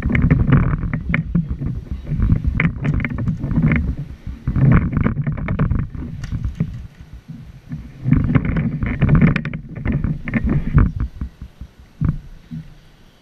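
Wind buffeting the action camera's microphone in loud, rough gusts a few seconds apart, dying away near the end.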